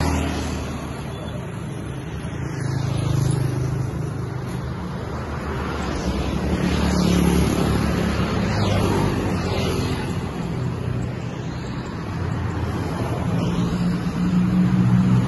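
Road traffic: a motor vehicle engine's steady low hum, with other vehicles passing a few times.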